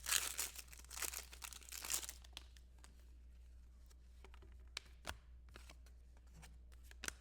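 Foil wrapper of a trading card pack being torn open and crinkled: a dense crackle for the first two seconds or so, then a few faint clicks and rustles.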